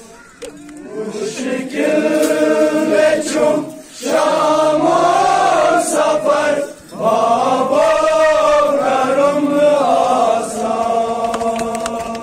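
Male voices chanting in long, drawn-out sung phrases, with short breaks about four and seven seconds in.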